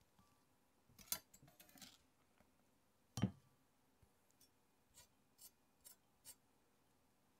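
Chef's knife blade scraping minced onion across a cutting board and into a glass bowl: a few short scrapes and clicks, one heavier knock about three seconds in, then four light taps of the blade on the board, with near silence between.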